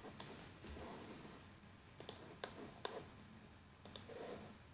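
Faint clicks of a computer mouse, about six short clicks spaced irregularly, as a fillet edge is selected in CAD software.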